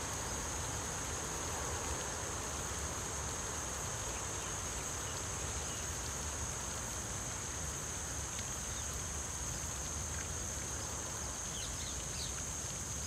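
Steady high-pitched insect drone over a low outdoor rumble, with a few faint short chirps near the end.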